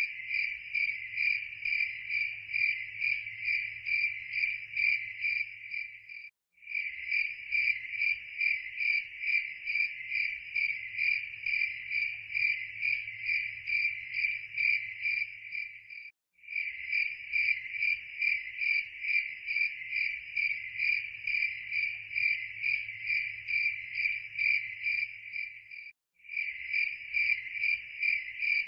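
Crickets chirping in a steady pulsing high trill, about three chirps a second. It is a looped recording, cutting out for a split second roughly every ten seconds where the loop restarts.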